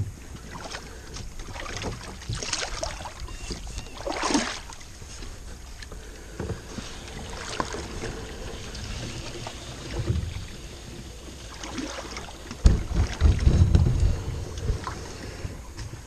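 Canoe pushing through tall reeds: stems swishing and scraping irregularly along the hull, with a sharper scrape about four seconds in. A stretch of low rumbling about three-quarters of the way through.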